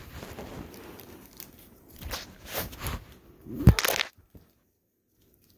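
Close handling noise: rustling and crunching with a few sharp knocks as a phone camera is moved in close over the jewelry and fabric, the loudest knock a little before four seconds in. The sound then cuts out abruptly to silence.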